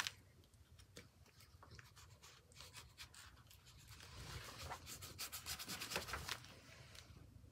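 Faint scratchy strokes of a water brush rubbing paint onto journal paper, quicker and busier about halfway through.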